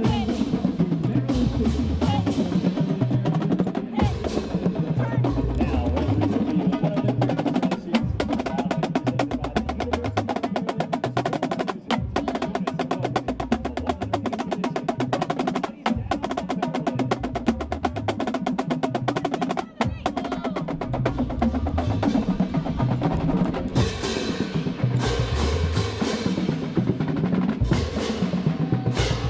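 Marching band drumline playing a cadence: rapid snare patterns over tenors, with runs passed across the pitched bass drums, in four-second phrases broken by short breaks.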